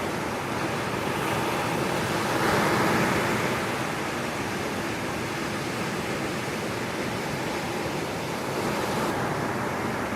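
Ocean surf breaking on the shore: a steady rushing wash with a louder wave swelling about two and a half seconds in.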